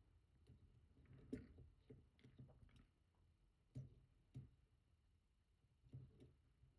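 Faint, scattered clicks and taps of a pick turning the disks inside a Rosengrens 32A81S disk detainer lock, with near silence between them. The loudest click comes about a second and a half in. The lock is being reset to pick again from the first disk.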